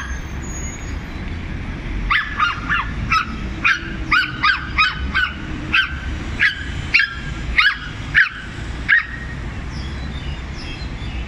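Small dog yapping: a quick run of about fifteen sharp, high-pitched barks that starts about two seconds in and stops about nine seconds in.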